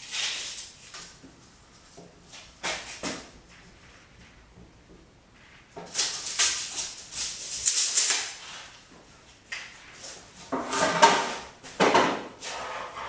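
A wooden board being picked up, slid and set down on a miter saw's table: scrapes, knocks and rustles in several short bursts, with a longer spell of sliding and scraping in the middle.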